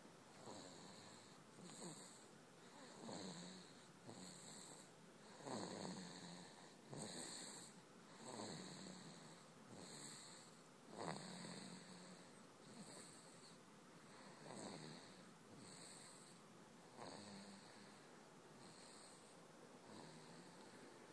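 Faint snoring in a slow, even rhythm, one soft snore about every second and a half.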